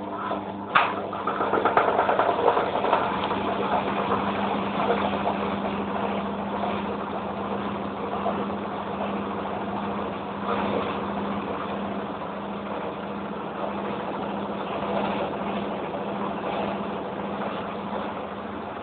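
Hoover Electra 1100F washing machine on its final spin: a sharp click just under a second in, then the motor and drum run with a steady whirring hum, louder for the first few seconds before settling.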